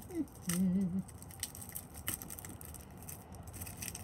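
A short wavering hum from a woman's voice in the first second, then the faint crinkle and tap of cellophane-wrapped tarot cards being handled, with a few scattered clicks.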